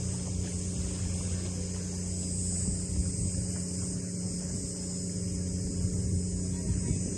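A steady low motor hum with a steady high hiss above it.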